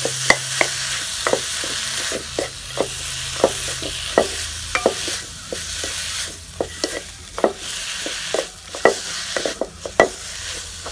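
Leafy greens frying in oil in a metal pan, sizzling steadily, while a metal spoon stirs them and knocks and scrapes against the pan in irregular clinks that come thicker in the second half.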